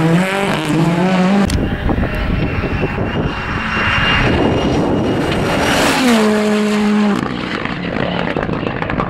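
Rally car engines revving hard on a tarmac stage: one car's engine climbs steadily in pitch as it accelerates past, then another car's engine and tyre noise, with a strong engine note that drops about six seconds in and cuts off a second later, and short crackles near the end.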